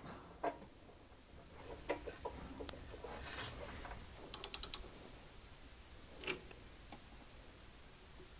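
Faint clicks and light metal handling sounds from the throttle cable being fitted to the carburetor linkage, with a quick run of about six clicks near the middle.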